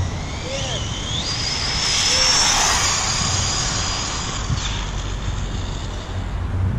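Brushless electric motor of a spool-equipped RC car whining as it accelerates flat out on a speed run of about 85 mph. The whine rises in pitch in two steps, holds high, and cuts off about four and a half seconds in. A rush of tyre and air noise is loudest about two and a half seconds in as the car passes close by.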